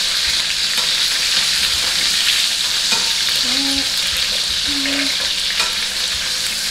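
Beef short ribs searing in hot oil in a frying pan: a steady sizzle.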